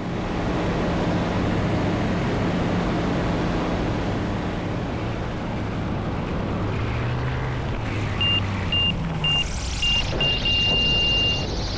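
Light bush plane's engine and propeller running at reduced power on a landing approach, with the engine note shifting as power is adjusted under steady wind noise. About eight seconds in, a high cockpit warning tone beeps five times and then sounds steadily for about a second.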